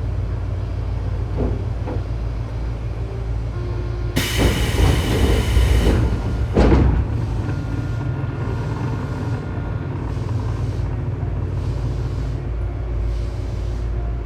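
Tobu 9000 series electric train running, heard inside the car directly over its armature chopper controller. This is the one car whose chopper makes an abnormal noise. A steady low rumble carries thin steady chopper tones. About four seconds in, a loud rushing noise lasts about two seconds, then there is a sharp crack.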